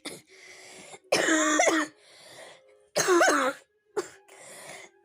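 A woman coughing hard in two fits, about a second in and about three seconds in, with noisy breaths drawn in between: the lingering cough of someone ill.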